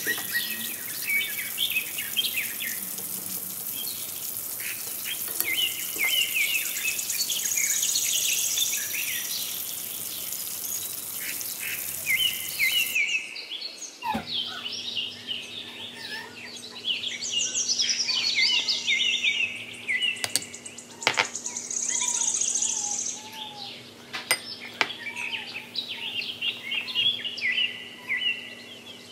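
Birds chirping and singing throughout, many short repeated calls. Under them in the first part is the steady hiss of banana slices frying in hot oil, which cuts off about 13 seconds in.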